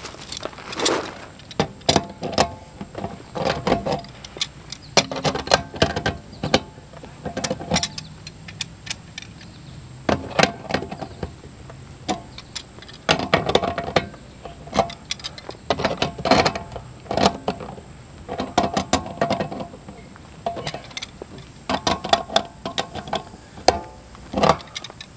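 Metal tools clinking and clicking against a new pop-off valve as it is threaded into a Suburban RV water heater's tank fitting and turned tight with pliers, in irregular bursts of sharp clanks.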